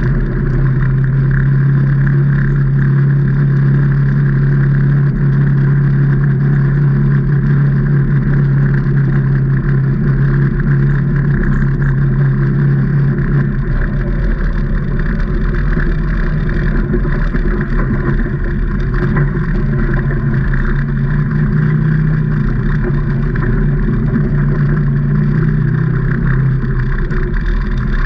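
Can-Am Maverick Trail 800's Rotax V-twin engine running under way on a trail, holding a steady note for about the first half, then easing off and wavering before picking up again near the end.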